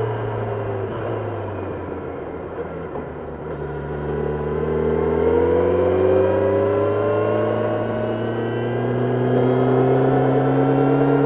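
Kawasaki Ninja 1000SX's inline-four engine heard on board: the revs fall off and stay low with the throttle closed, then about four seconds in they climb steadily under acceleration, ease briefly, and rise again near the end, over a rush of wind noise.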